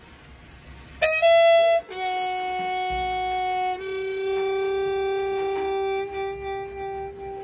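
Trumpet played with a round ball held over its bell, sounding long held notes: a short, loud, bright high note about a second in, then a lower note sustained for several seconds that wavers slightly near the end.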